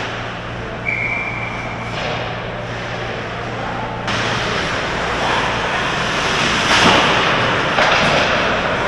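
Ice hockey play in an indoor rink: skates scraping the ice and sticks clattering, with a short, steady whistle about a second in. The scraping gets louder after about four seconds, with sharper scrapes near the end.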